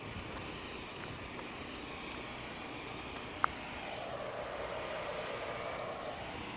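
Portable backup generators running with a steady drone, with one sharp click about three and a half seconds in.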